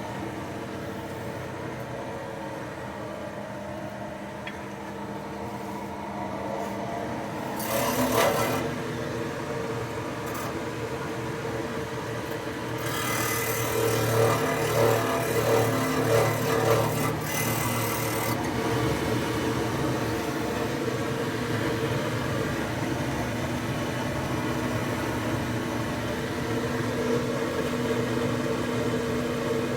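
Electric forge blower fan running with a steady hum. Rustling and scraping come in over it briefly about a quarter of the way in and for several seconds around the middle.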